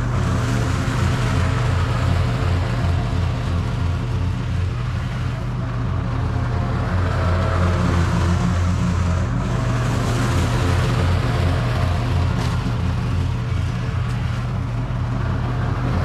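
Toro TimeCutter SS4260 zero-turn mower running steadily under load while mowing grass, a constant engine drone with little change in speed.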